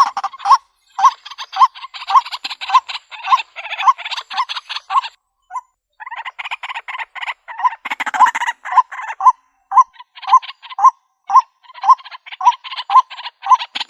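White-breasted waterhen calling: a loud, monotonous note repeated about twice a second over a fast rasping chatter. The calling breaks off briefly about five seconds in and again near ten seconds, then carries on.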